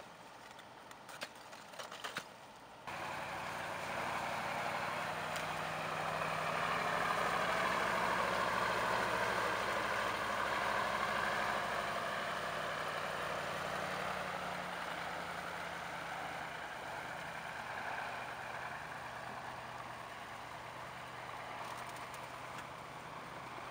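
A heavy diesel truck towing a container semi-trailer drives past over snow-covered ice. Its engine and tyres start suddenly about three seconds in, are loudest around eight to twelve seconds, then slowly fade. Before that come a few sharp knocks of crowbars striking ice.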